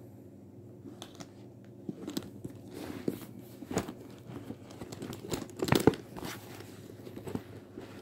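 Leather handbag and its strap being handled and turned over, with irregular rustles and light knocks. The loudest cluster comes just before six seconds in.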